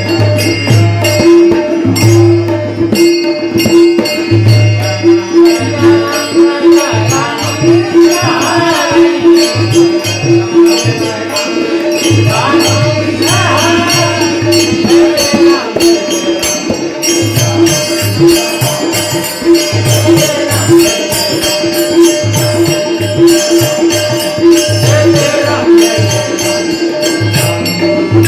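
Bhajan accompaniment: tabla playing a steady rhythm with deep bass-drum strokes and jingling percussion, over a held drone note. A melodic line rises and falls twice in the middle.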